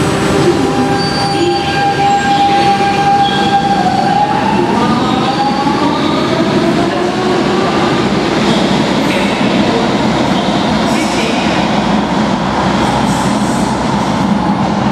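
Lisbon Metro electric train pulling out of an underground station: a steady motor whine that rises in pitch from about four seconds in as the train accelerates, followed by the rumble of wheels on the track with some wheel squeal as it runs off into the tunnel.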